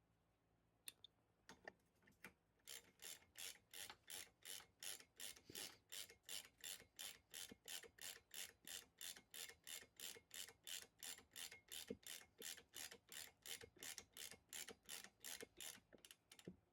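Ratchet wrench clicking in an even rhythm, about three clicks a second, as a part of a bicycle suspension fork is run down tight.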